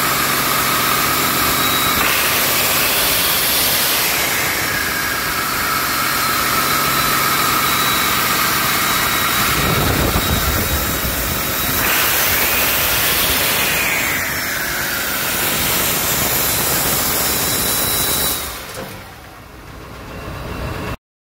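2009 Cummins ISB 6.7 L turbo-diesel inline-six running on a test run, a steady engine sound with a whine and hiss. It swells around ten seconds in, and a whine falls in pitch just afterwards. The sound drops sharply near the end.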